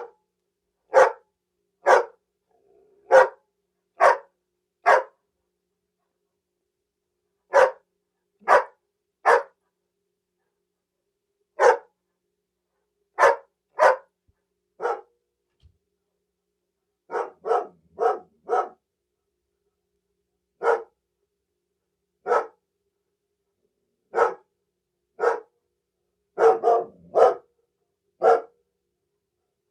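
Dog barks from a cartoon sound-effect clip: about two dozen short, sharp single barks, most about a second apart in small runs, with dead silence between them and a tight cluster of barks near the end.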